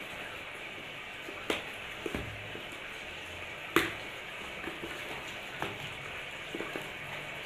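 Scissors snipping packing tape and cardboard being torn and handled as a parcel box is opened: several short, sharp clicks and crackles over a steady background hiss, the sharpest a little past halfway.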